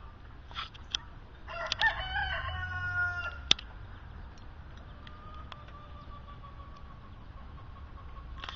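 A rooster crows once, for about two seconds, starting a second and a half in. Around it come a few sharp single cracks from a DPMS Panther airsoft rifle being fired, the loudest just after the crow.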